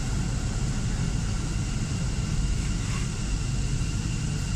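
Metro train running along a station platform, heard from inside the car: a steady low rumble of wheels and running gear with a faint steady whine from the motors.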